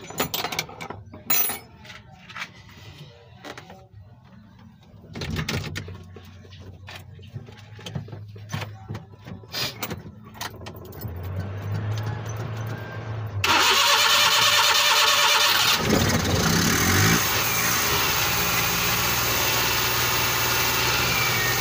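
Suzuki F6A three-cylinder multicab engine starting after a loose battery cable was tightened. First there are scattered clicks and rattles, then about two thirds of the way in the engine starts abruptly and keeps running steadily.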